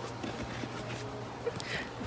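Faint, indistinct voices over a steady low hum, with a brief hiss near the end.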